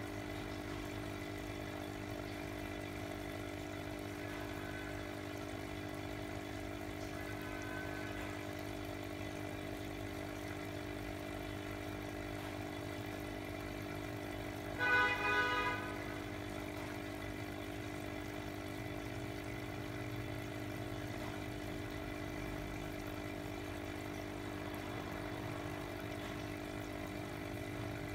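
Small aquarium pump humming steadily, with air bubbling into a goldfish bowl. About halfway through, a brief pitched sound lasting about a second rises above the hum.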